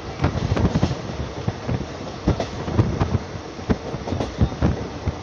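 Express train coaches running at speed, heard from inside a coach: a steady rumble of wheels on the track with many irregular sharp clattering knocks.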